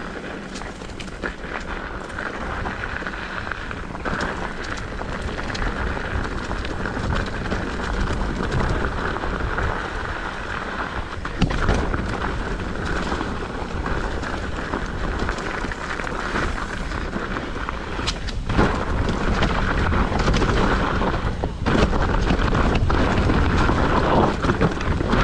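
Mountain bike riding down a rough dirt downhill trail: wind buffeting the camera microphone over the rumble of tyres on dirt, with scattered knocks and rattles from the bike over bumps. The noise grows louder over the last few seconds.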